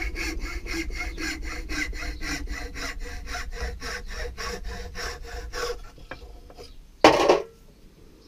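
Hacksaw cutting through a seasoned ash hammer haft held in a vise, trimming the excess to length, in quick even back-and-forth strokes that stop about six seconds in. About a second later comes a short, loud clatter.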